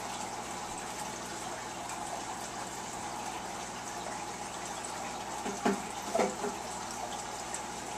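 Steady running and splashing water from an aquarium filter returning water into the tank. Two brief louder noises come a little over five and six seconds in.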